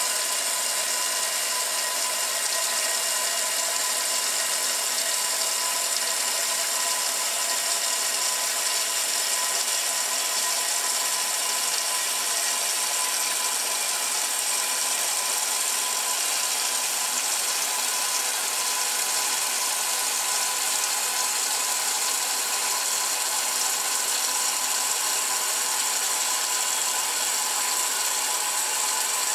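A 1968 Kenmore top-loading washing machine agitating a load, its agitator churning clothes and wash water. The motor and drive make a steady mechanical whir with a constant tone.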